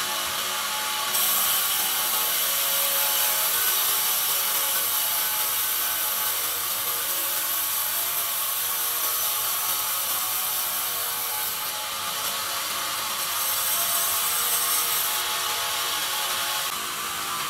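Large band sawmill blade cutting lengthwise through a pine log on the moving carriage: a steady, loud, high hiss of the cut over the hum of the machinery. The hiss grows louder about a second in, eases briefly about two-thirds of the way through, and drops again near the end.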